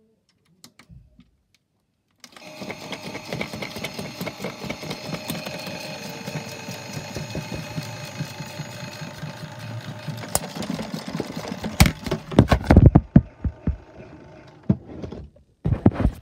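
Toy Miele washing machine starting about two seconds in, its small motor whirring steadily and the drum rattling. Several loud sharp knocks follow near the end.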